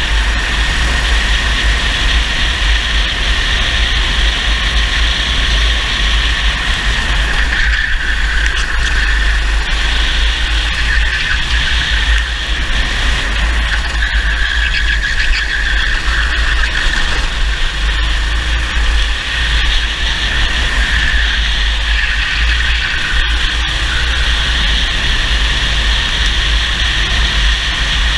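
Racing kart engine running hard at race speed, its note rising and dipping a little with the throttle through the corners. Heard from a camera mounted on the kart, with a constant low rumble underneath.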